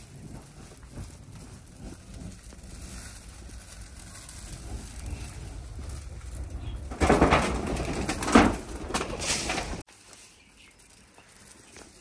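Birds' wings flapping in a loud flurry about seven seconds in, lasting a couple of seconds and stopping abruptly, over a low rustling background.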